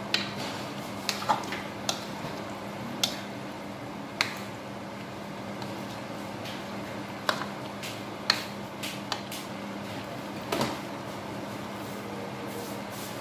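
A cooking utensil knocking and scraping against a wok as stir-fried vegetables are tossed: about a dozen sharp irregular clinks, over a steady hiss and low hum.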